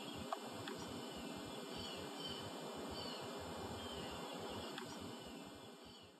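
Outdoor ambience: a steady low hiss of background noise with faint, scattered bird chirps. There is one sharp click just after the start, and the sound fades out near the end.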